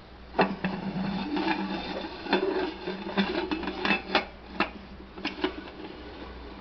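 Aluminium pressure cooker lid scraping against the cooker's rim as it is fitted and turned shut, with a string of sharp metal knocks.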